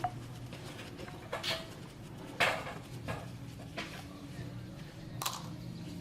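A few short clinks and clatters of handled metal, about four spread out, over a low steady hum.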